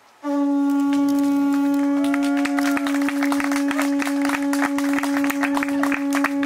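Conch shell trumpet (Hawaiian pū) blown in one long, steady, unwavering note that starts just after the opening and is held on. The blast sounds the couple's kiss at the close of the ceremony.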